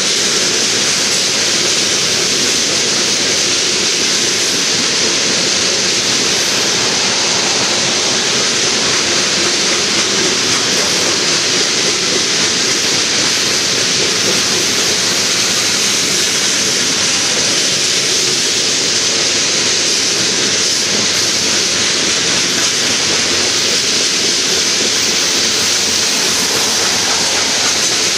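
Covered hopper cars of a freight train rolling past close by: a steady, loud noise of steel wheels running on the rails.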